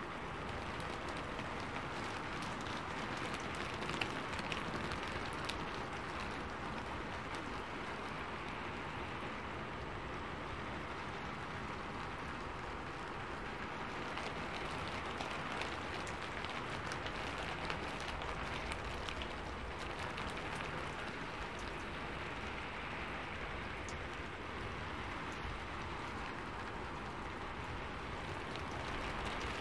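Steady rain falling, an even hiss dotted with the ticks of individual drops striking, a few of them louder than the rest.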